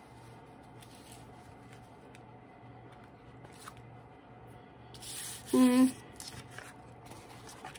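Soft rustling and dabbing of a tissue and wet, glue-soaked paper being blotted and pressed flat by hand. About five seconds in comes a quick swish, then a brief, loud pitched squeak.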